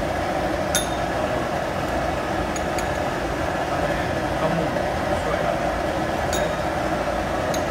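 Metal spoons clinking a few times against spice bowls and a steel wok as ground spices are added to the chicken, over a steady rushing kitchen roar.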